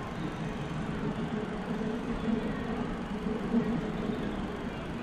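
Steady background road traffic noise, a continuous rumble and hum with no distinct events.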